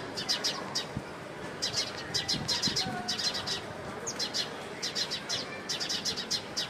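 House sparrows chirping: rapid runs of short, sharp chirps, several a second, broken by brief pauses between runs.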